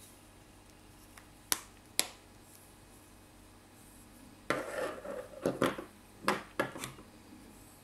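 Two sharp clicks as a plastic pen cap is worked off and on. About halfway through come a couple of seconds of handling noise: rubbing and light knocks as the pen is put down on a wooden desk and another pen is picked up.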